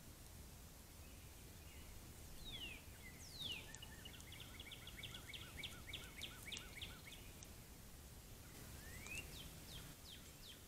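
A songbird singing: a couple of quick falling whistled notes, then an even trill of about four notes a second lasting a few seconds, and near the end a rising note followed by several short falling ones. A steady low hiss runs underneath.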